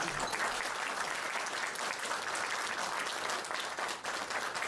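Crowd of guests applauding: many hands clapping in a dense, steady patter.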